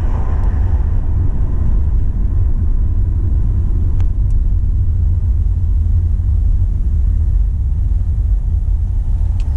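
Steady low rumble of a road vehicle being driven, heard from inside the cab: engine and tyre noise.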